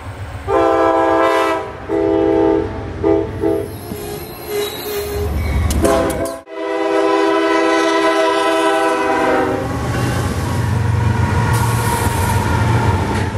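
Diesel locomotive air horns sounding a chord: several blasts in the first few seconds, then after a sudden break one long blast. Near the end the horn stops and a locomotive passes close by with a deep rumble.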